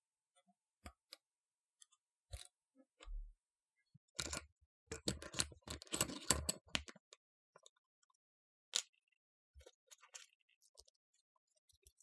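Small metallic clicks and taps of a hook pick and tension wrench working the pins of a pin tumbler lock cylinder fitted with serrated security pins. The clicks are scattered, with a busier run of clicks and knocks from about four to seven seconds in and one sharper click a couple of seconds later.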